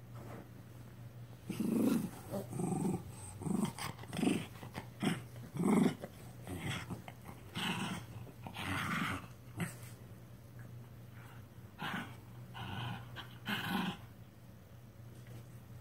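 Shiba Inus play-wrestling: short, irregular bursts of play growls, starting about a second and a half in and coming thick and fast, then thinning out near the end.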